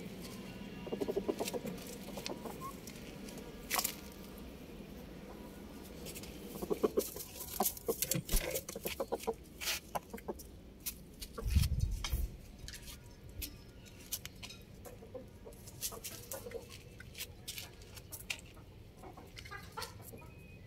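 Domestic chickens, a rooster and a hen, clucking now and then, with a run of sharp taps through the middle and a low thump about halfway through.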